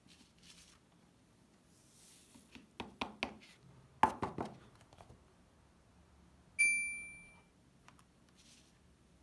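A stiff sand-painting card handled and flexed on a table, with a cluster of taps and knocks about three to four and a half seconds in. About two seconds later comes a single bell-like chime that fades over about a second, a subscribe-button sound effect.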